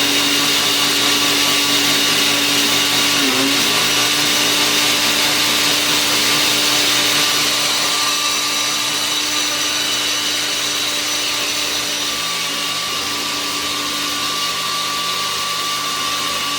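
Smoothie maker blender running steadily, grinding raw potato, onion and egg into potato pancake batter. The motor pitch dips briefly about three seconds in as it bogs under the load.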